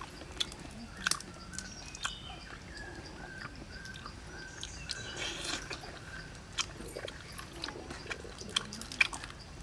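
Grilled crayfish shell cracking and snapping as it is peeled apart by hand, with chewing: sharp irregular cracks, the loudest about a second in and near the end. A faint high-pitched steady call comes and goes behind it.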